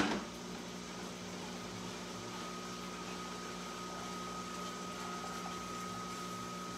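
A sharp knock at the very start, then the steady electrical hum of a running microwave oven, with a faint high tone joining about two seconds in.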